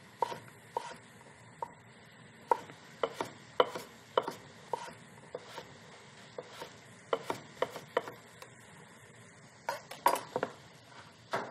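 Chef's knife cutting summer squash into fine dice on a wooden cutting board: irregular knocks of the blade on the board, one to three a second, with a short pause near the end.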